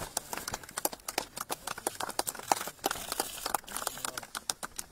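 A small group of people clapping: scattered, uneven hand claps, many a second.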